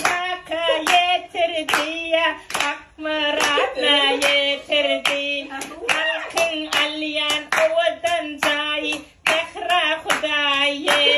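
Hands clapping in a steady rhythm while a voice sings along, the song's held notes wavering in pitch. Clapping and singing break off briefly just after nine seconds, then carry on.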